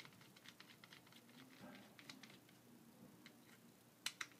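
Faint, irregular clicking of a small screwdriver turning a screw out of a plastic Transformers figure's leg, with two sharper clicks near the end.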